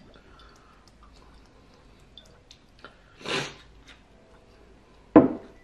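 Faint small clicks and taps as a glass Tabasco bottle is shaken over a pan of spaghetti, then a short hiss-like rush a little past three seconds in and a sharp thump near the end, the loudest sound here.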